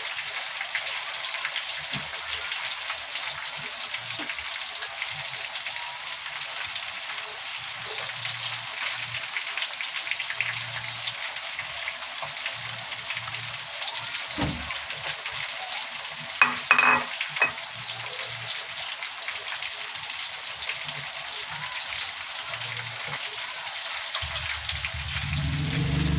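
Chicken pieces deep-frying in canola oil: a steady crackling sizzle. A brief cluster of sharp knocks comes a little over halfway through.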